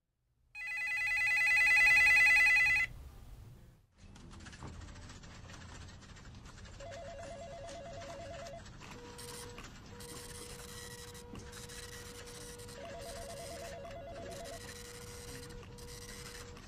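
A loud, fast-trilling telephone bell rings for about two seconds and stops abruptly. Then a softer, lower electronic phone ringer trills twice, about six seconds apart, over faint room noise.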